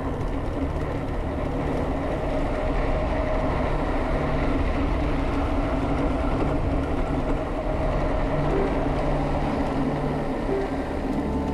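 Steady rush of wind over the microphone of a bike-mounted action camera, mixed with tyre noise on pavement, as a mountain bike descends a steep paved road at speed.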